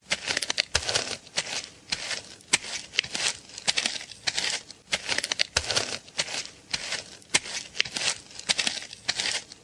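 Footsteps crunching on a loose, crackly surface at a steady walking pace, about one and a half steps a second.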